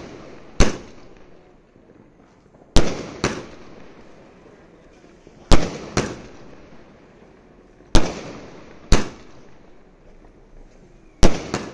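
A 240-shot aerial firework cake firing: loud, sharp bangs, mostly in pairs about half a second to a second apart, with a new pair every two and a half to three seconds.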